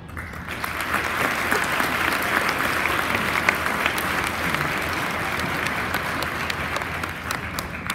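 Audience applauding, the clapping starting about half a second in and dying away near the end.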